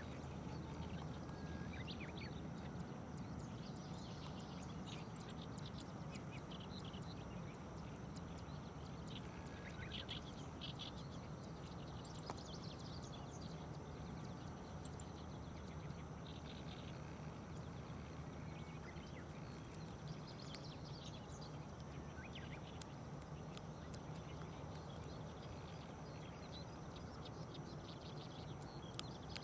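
Open-air ambience: a steady low background rumble with small birds' high, short chirps repeating irregularly throughout, and a few brief bird calls now and then.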